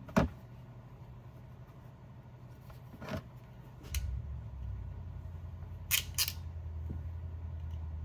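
Sharp clicks from a hand wire crimping tool closing on a connector: one loud click at the start, another about three seconds later, and a quick double click near six seconds. A low steady hum comes in about halfway.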